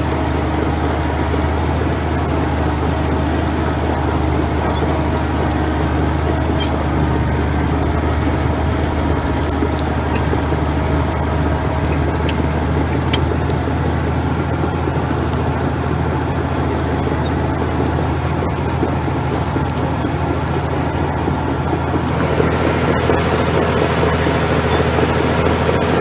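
David Brown 50 crawler's diesel engine running steadily under load while pulling a four-furrow plough. It grows louder and brighter about 22 seconds in.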